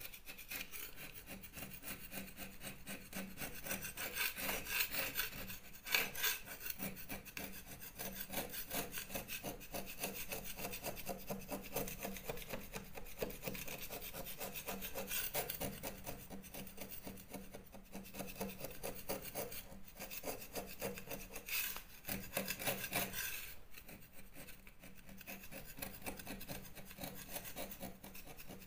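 Metal scraper blade scraping loose, powdery Artex and plaster off a wall: a continuous run of rapid scratching strokes, with a few louder scrapes along the way.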